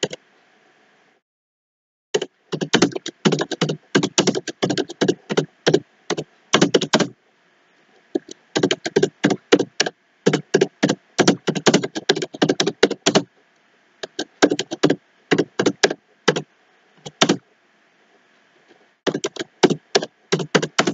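Computer keyboard typing: rapid keystrokes in four runs of a few seconds each, with short pauses between them.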